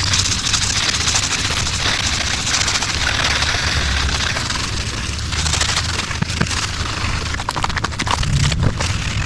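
Loose, peeling clear coat being scraped off a car's painted hood: a steady scratchy rasp with a run of quick clicks about three-quarters of the way through.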